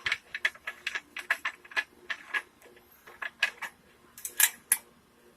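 Light metallic clicks and taps at an irregular pace as the outboard's fuel tank cap is opened and handled, with a few louder clicks about four and a half seconds in.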